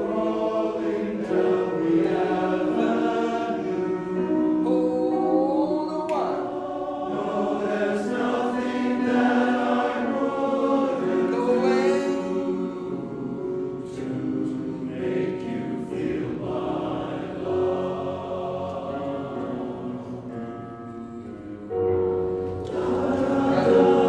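Men's chorus singing in tenor and bass parts, many voices holding chords together and moving from chord to chord, dipping softer and then swelling louder near the end.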